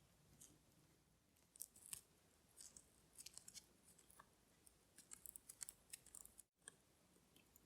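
Faint, irregular small clicks and ticks of metal tools on tiny watch parts as a wristwatch movement is taken apart, coming in short clusters.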